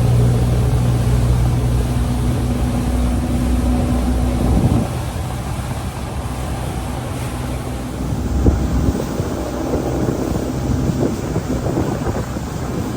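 Motorboat engine running with a steady hum, which drops away about five seconds in. After that, water splashes and slaps against the hull, with wind on the microphone.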